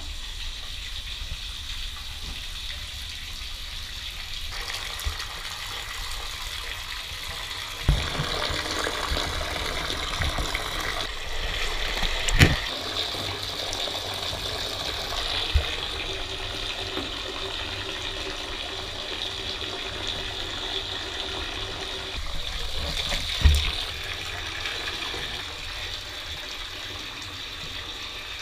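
Shower water spraying steadily into a bathtub, heard through a waterproof camera housing, with a few sharp knocks along the way.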